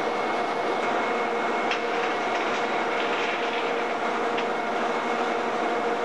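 Steady mechanical drone of rail-shed machinery around a carriage raised on lifting jacks for a bogie change, with a couple of constant hums and a few light metallic clicks.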